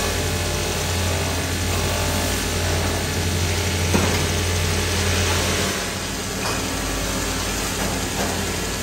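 Belt-driven buffing machine running with a steady low hum, its spinning polishing wheel rubbing against an aluminium motorcycle wheel hub held to it with a continuous rushing hiss. The level drops a little about six seconds in.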